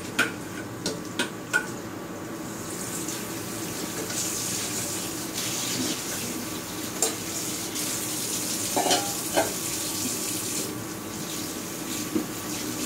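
Kitchen tap running into a sink while a container is washed by hand, with sharp knocks and clinks of dishware: three in the first two seconds, several more in the middle and one near the end. The water is strongest through the middle stretch, and a steady hum runs beneath it all.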